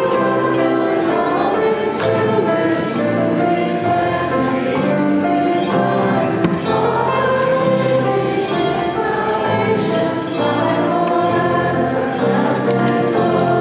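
A church congregation singing a baptismal hymn together, many voices holding long, steady notes.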